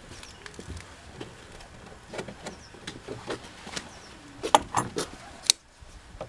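Small clicks and rattles of a brass drain fitting and hand tools being handled against a plastic stock tank, with a few sharper clicks and taps about four and a half to five and a half seconds in.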